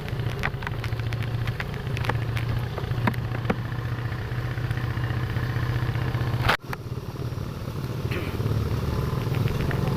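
Motorcycle engine running steadily, with scattered sharp ticks over it and a sudden brief break about six and a half seconds in.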